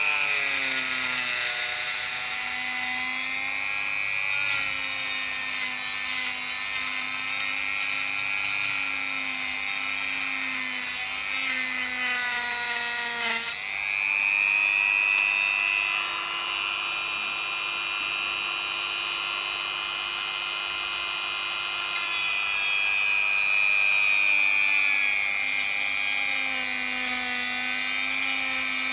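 Dremel rotary tool with a cutoff wheel cutting into the plastic motor arm of a DJI FPV drone: a high motor whine with a hiss of cutting noise, its pitch sagging and wavering under load. About halfway through the wheel lifts off and spins free at a higher, steadier pitch for several seconds, then bites in and cuts again.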